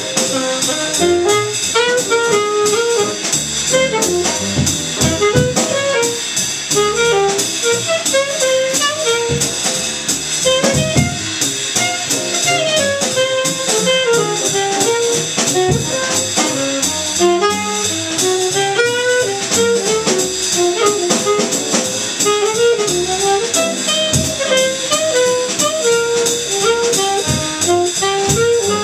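Small jazz combo playing: a saxophone solos in quick runs of short notes over piano, upright bass and drum kit.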